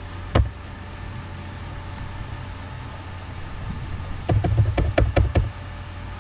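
Computer keyboard keystrokes: a single click, then a quick run of about eight to ten keystrokes near the end, over a steady low hum.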